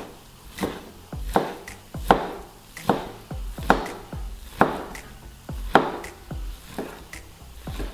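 Chef's knife slicing a rolled egg pancake into thin strips on a plastic cutting board, the blade knocking on the board in a steady rhythm a little more than once a second.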